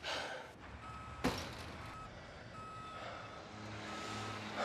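Faint electronic beeps at a single pitch, sounding several times at irregular lengths about once a second. A single sharp knock sounds about a second in.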